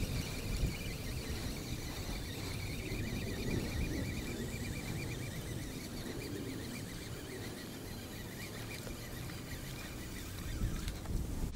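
Outdoor ambience: uneven wind noise buffeting the microphone, with rapid, repeated high chirping in the background from about two seconds in until near the end.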